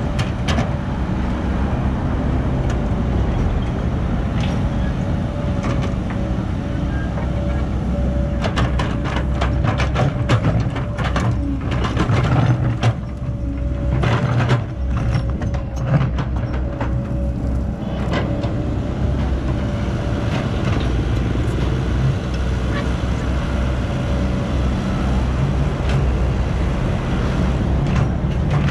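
Caterpillar 312B hydraulic excavator's diesel engine running steadily under load while it digs, with a thin steady whine over the rumble. A spell of sharp clanks and knocks runs through the middle as the bucket scoops and dumps soil.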